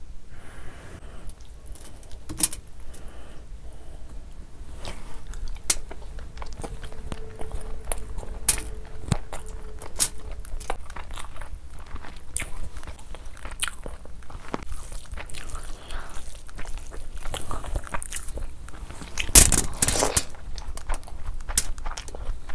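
Close-miked wet food-handling sounds: a ladle pouring curry gravy over mutton liver curry and rice, then a hand squishing and mixing basmati rice into the gravy, with many small scattered clicks. About 19 seconds in comes a louder, longer burst, followed by biting and chewing as a handful of rice and curry is eaten.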